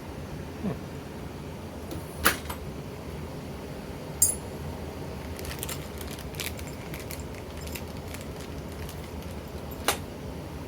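Sharp clicks and knocks of small lock hardware being handled and fitted, three louder ones spread out with lighter ticks between them, over a steady low hum.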